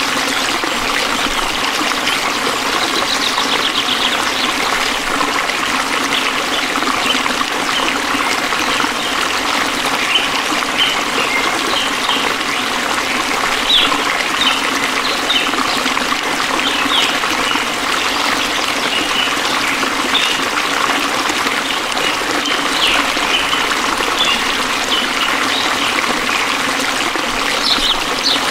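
Stream water trickling and flowing steadily, with short high chirps scattered over it, more of them in the second half.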